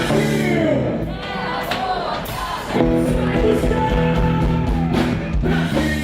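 A live rock band playing with singing. The full band comes in louder about three seconds in.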